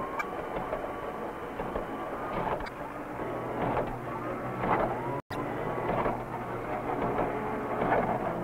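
Drive motors of Theseus, Shannon's relay-controlled maze mouse, whining in short spurts that rise and fall in pitch as they move the electromagnet carriage under the maze floor. Over them runs a steady low hum, with scattered clicks from the telephone-relay circuit.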